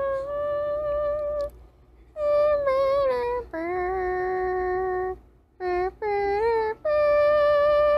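Dog howling in a series of long, drawn-out notes with short breaks between them.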